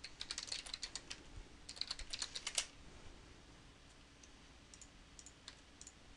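Computer keyboard typing: quick runs of keystrokes for the first two and a half seconds or so, then only a few scattered taps near the end.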